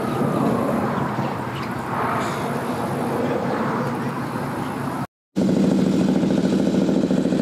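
A steady mechanical rumble, then after a sudden break about five seconds in, a motorcycle engine running louder with a steady low drone.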